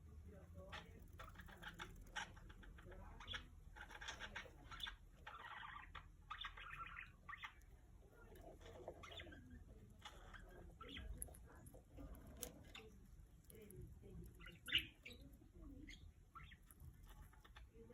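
Faint clicks, scratches and rustles of a small pet bird moving about. A denser rustle runs from about four to seven seconds in, and there is one sharper click near the end.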